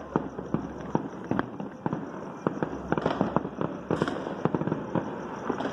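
Fireworks and firecrackers going off in an irregular, rapid string of sharp bangs, several a second, bunching into a denser crackle about three to four seconds in.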